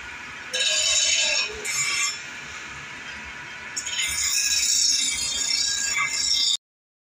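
Metal parts clinking and rattling in several bursts as they are handled, the longest starting about four seconds in. The sound cuts off abruptly near the end.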